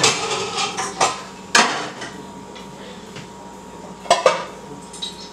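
Cookware clattering: a pot pulled from a cupboard and set down at the sink, with a bowl of rice set onto it to drain. Several sharp clanks in the first two seconds, then two more about four seconds in.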